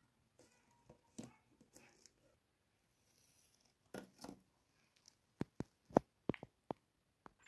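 Plastic doll packaging being opened by hand: a clear plastic tube and its pink plastic caps rustling and scraping, then a quick run of about seven sharp plastic clicks and taps in the second half as the doll on its plastic base is pulled free.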